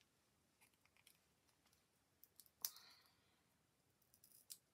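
Near silence with a few faint clicks of a small pot of glitter being picked up and handled. One sharper click with a brief rustle comes about two and a half seconds in, and a few small ticks come near the end.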